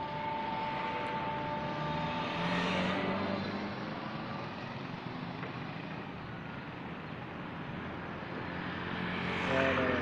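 Road traffic: engines humming and vehicles passing close by, one swelling past about three seconds in and another near the end.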